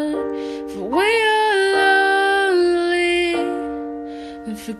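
Pop ballad playing: piano chords under a sung note that swoops up about a second in and is held for a couple of seconds before the chords change.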